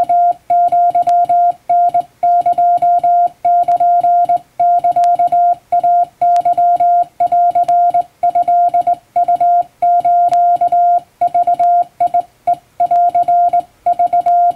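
Morse code sent by hand on a straight key, heard as a steady single-pitch monitor tone keyed on and off in dots and dashes of Japanese wabun code, with short gaps between characters.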